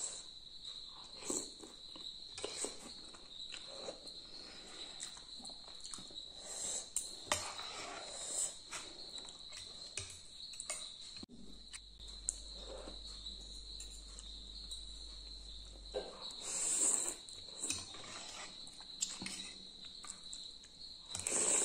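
Eating noises from a bowl of noodle soup: a fork and spoon clicking against the bowl, then noodles slurped and chewed near the end. A steady high-pitched tone sounds in the background throughout.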